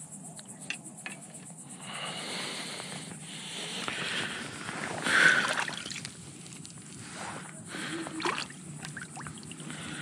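A small bream flapping on wet mud at the water's edge, with wet squelching and slapping as it is grabbed and handled. The loudest moment comes about five seconds in.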